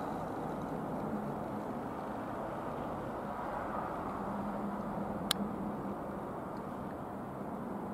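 Steady jet noise from a twin-engine Dassault Falcon 20 flying overhead, with a faint low hum underneath. A single sharp click about five seconds in.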